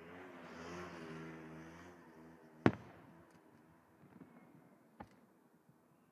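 Fireworks: one sharp loud bang about two and a half seconds in and a fainter one about five seconds in. Before the first bang a low droning hum swells and fades.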